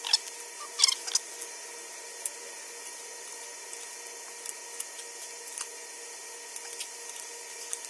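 Two short scraping rustles about a second in, then faint scattered ticks over a steady hiss: small parts and tools being handled while a wall outlet is wired in.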